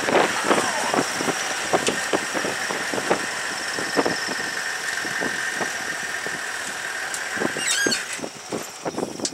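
Safari vehicle driving over a rough dirt track, its body and open-roof frame rattling and knocking with the bumps. A steady high whine runs under it and cuts off suddenly about eight seconds in, after which the noise dies down.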